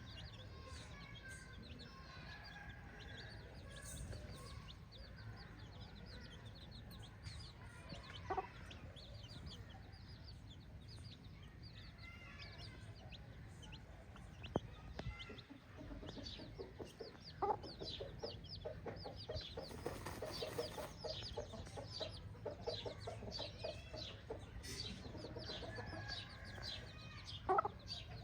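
A flock of free-range chickens clucking, with a constant chatter of short high peeps. A few louder single squawks stand out: about 8 seconds in, at about 17 seconds and near the end. A run of quick repeated clucks comes a little past the middle.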